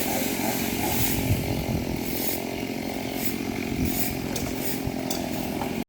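Two-stroke chainsaw running steadily, cutting up a storm-felled tree, stopping abruptly at the end.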